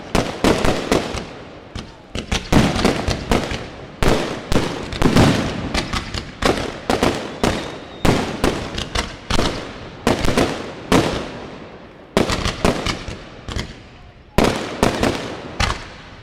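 Fireworks display: a dense, continuous run of aerial shell bursts and crackling, with a sharp bang every second or so and many smaller cracks between them.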